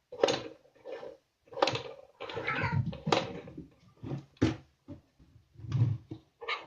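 A series of sharp knocks and clatter, about one a second, from objects being handled and set down on a table.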